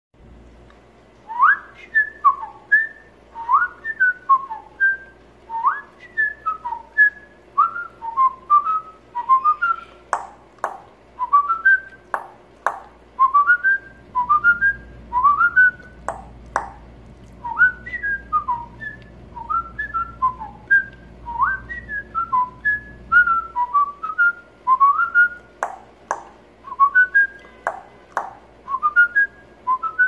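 A person whistling a tune to pet parrots in quick, clear notes in short melodic phrases, with sharp clicks here and there, several in pairs.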